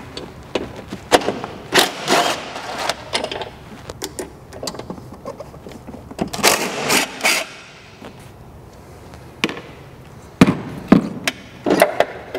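Cordless power tool running in short bursts as it spins off the two 12 mm nuts holding a clutch master cylinder to a car's firewall, with sharp clicks and clacks of the tool, nuts and metal bracket being handled.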